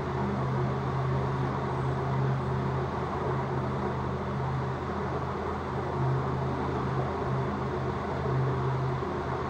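A steady machine hum over a rushing, whirring noise, with no breaks.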